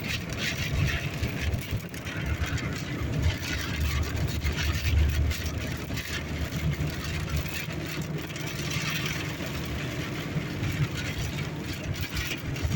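A car driving, heard from inside the cabin: a steady low engine and road rumble, with hissing swells of noise coming and going over it.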